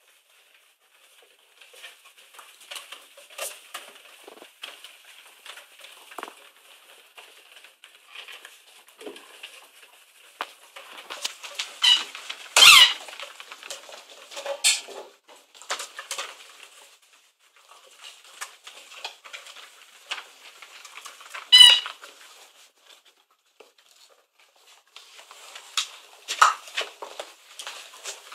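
Airedale terrier puppies at play: scattered squeaks, yips and scuffling, with two loud, high, wavering squeals about twelve and twenty-one seconds in.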